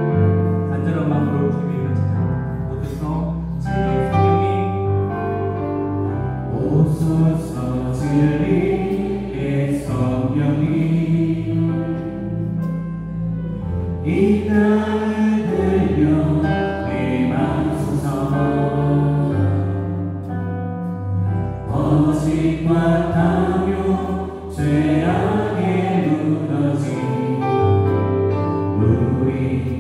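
Live praise band of keyboards, electric guitar, bass guitar and drums playing a gospel worship song, with a group of voices singing along.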